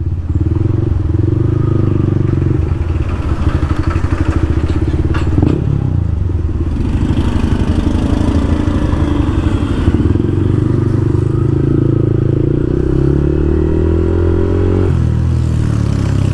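Yamaha MT-15 single-cylinder motorcycle engine, fitted with an aftermarket exhaust and dB killer, running steadily while riding. Near the end the engine pitch rises as it accelerates, then drops off suddenly as the throttle closes or it shifts gear.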